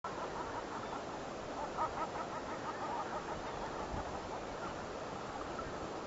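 A distant flock of birds calling, many short overlapping calls over steady background noise, thinning out about halfway through.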